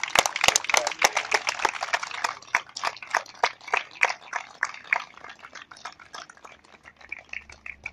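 Audience applauding: dense clapping that thins out to a few scattered claps near the end.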